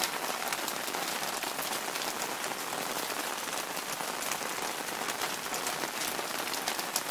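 Rain falling and dripping onto hard surfaces: a steady hiss dotted with many single drop hits.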